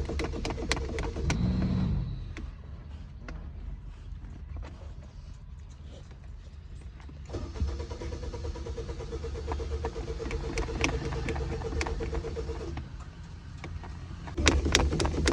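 Suzuki FX engine being cranked on its starter motor in three bouts of fast, even cranking, with pauses between them. The engine does not catch: the car won't start.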